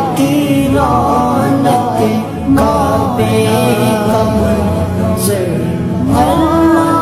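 Background music: a devotional song sung by a solo voice over a steady sustained backing.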